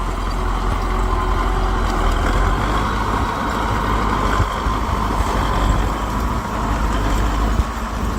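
Heavy bulldozer diesel engine running steadily, with a deep, even rumble and no change in speed.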